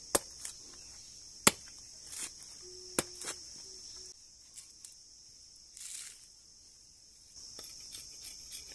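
Machete blade chopping into the husk of a dry coconut: a few sharp knocks, the loudest about a second and a half in, then a short rasp of husk fibre being torn off about six seconds in. Crickets chirp steadily in the background, dropping out for a few seconds in the middle.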